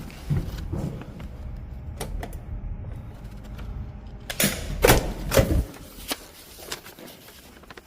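A run of irregular knocks and clicks close to the microphone, loudest in a cluster a little past halfway.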